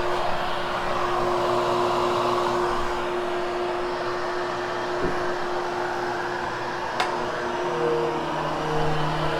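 Hoover HushTone upright vacuum cleaner running steadily on carpet, a constant motor hum over airy suction noise, with a sharp click about seven seconds in.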